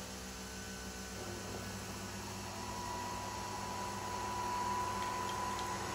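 Nespresso Vertuo coffee machine humming as it spins the capsule (centrifusion brewing) before the coffee starts to flow. A steady high tone comes in about halfway through, and the hum grows gradually louder.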